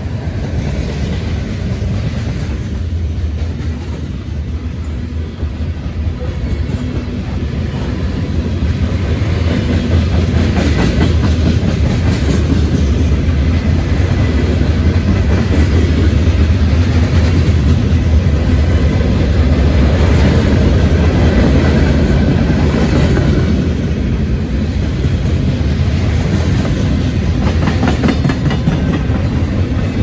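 Freight train cars (covered hoppers, a tank car and boxcars) rolling past at speed: a heavy, steady rumble with repeated clicks of steel wheels over the rails, growing louder over the first ten seconds or so.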